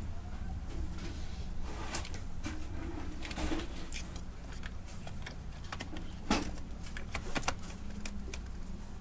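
Plastic parts of an opened Brother DCP-T710W inkjet printer clicking and knocking as they are handled, with one sharper click about six seconds in, over a steady low hum.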